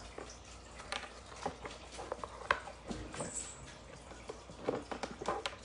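Scattered soft clicks and taps at irregular intervals, about eight in all, over a faint low hum.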